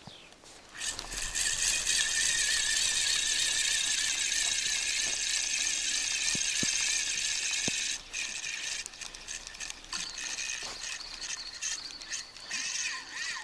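Spinning reel on a feeder rod being wound in, a steady whirring of the reel and line as slack line is retrieved. About eight seconds in the winding breaks into short stop-start turns.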